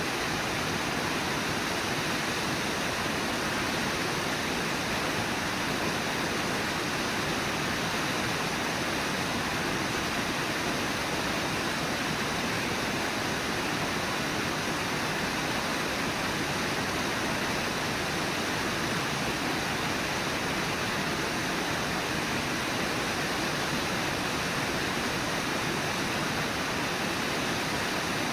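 Steady, unbroken rush of Brooks Falls, the river pouring over the falls.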